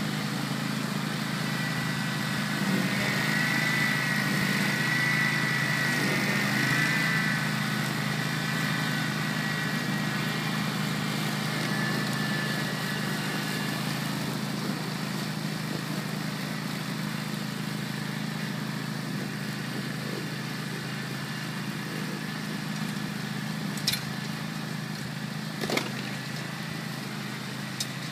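Grillo Climber 7.16 ride-on slope mower running steadily as it mows, a constant engine hum with a wavering high whine over it for several seconds a couple of seconds in. The sound grows slightly fainter toward the end, with two sharp clicks near the end.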